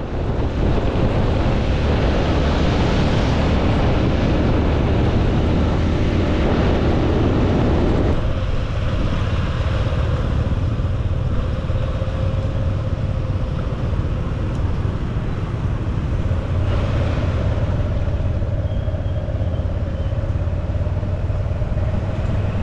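Honda Super Cub C125's single-cylinder four-stroke engine running on the move, with a steady rush of wind noise across the microphone. The sound shifts a little about eight seconds in.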